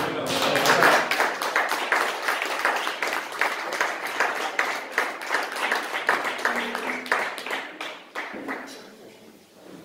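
Audience applauding with dense, quick hand claps that thin out and die away about nine seconds in.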